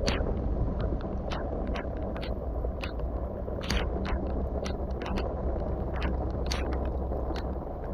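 Wind rumbling on the microphone, with sharp irregular ticks, several a second, of raindrops striking the camera.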